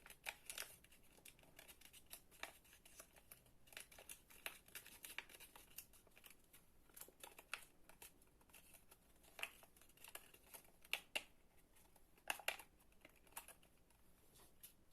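Paper being folded and creased by hand: faint, irregular crinkles and rustles, with a few sharper crackles in the second half.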